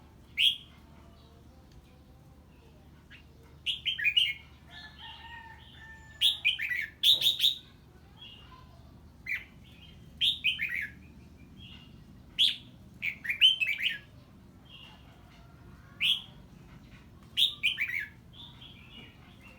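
Red-whiskered bulbul singing short, loud phrases of quick falling notes, about nine of them, a second or three apart.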